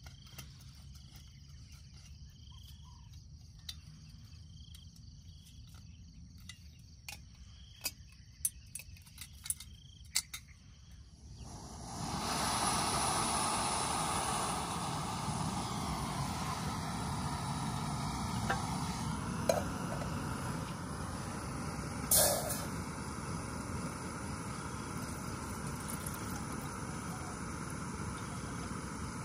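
Screw-on canister gas stove: a few sharp clicks, then a little over a third of the way in the burner comes on and runs with a steady, even hiss. A single metallic clank about two-thirds through.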